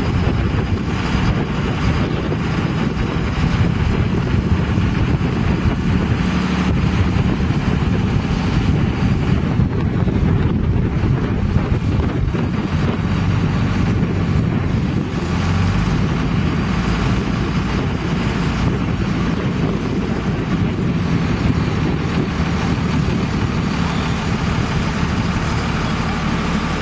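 A pickup truck's engine idling steadily, with wind on the microphone and lake waves washing against the shore.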